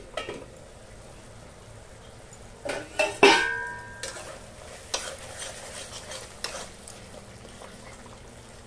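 A stainless steel lid comes off a kadhai and lands with a loud ringing clang about three seconds in. Then a metal spatula stirs and scrapes the thick cooked masala in the pan, which is sizzling.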